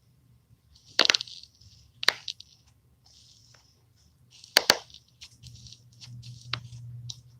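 Toe joints cracking: a series of sharp pops, about a second in, about two seconds in, then a quick double pop a little after four and a half seconds and a smaller one near the end, with soft rustling between them.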